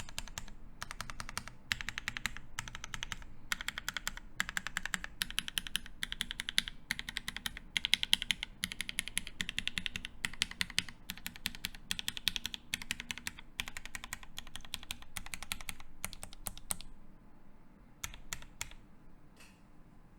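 Typing on a KFE CE mechanical keyboard with lubed Gateron Ink Black linear switches, a polycarbonate plate and GMK keycaps: fast keystrokes in continuous runs, thinning to a few scattered key presses near the end.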